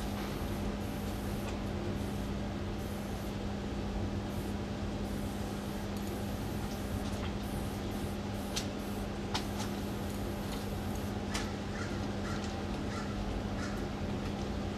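Steady low hum over even background noise, with a few sharp clicks around the middle and a bird calling in short notes in the second half.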